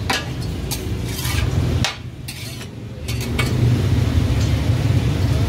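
Metal cleaver chopping and scraping garlic on a steel tawa griddle, with a few sharp knocks in the first two seconds. The sound then cuts off, and a steady low rumble comes up in the second half.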